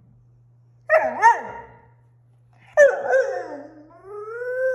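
German Shorthaired Pointer puppy talking back in protest at being kept from going outside. A short yowling bark that swoops up twice comes about a second in, another bark-yowl follows near the three-second mark, and then a long, drawn-out howl begins near the end.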